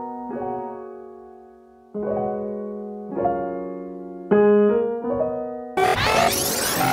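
Intro music: slow piano chords, each struck and left to ring and fade before the next. Near the end a loud rushing noise effect sweeps in over the chords.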